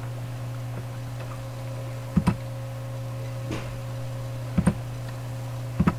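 Computer mouse clicks, mostly in quick double-click pairs: about two seconds in, once more faintly, then near four and a half seconds and near the end. They sit over a steady low electrical hum from the recording setup.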